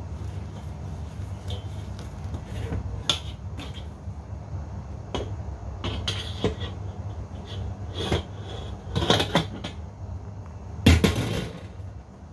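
A wok and plate clattering and knocking as the wok is turned upside down over the plate to turn out an omelet, then set back down; the loudest knock comes a little before the end. A steady low hum runs underneath.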